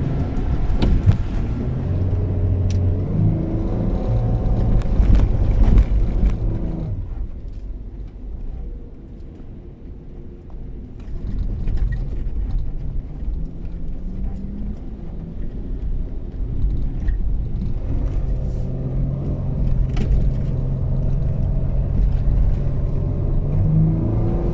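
Nissan Pathfinder R50's engine working under load off-road, with scattered knocks and rattles from the vehicle over rough ground. It runs hard for the first several seconds, eases off and goes quieter about seven seconds in, then picks up again with a rising note and holds steady.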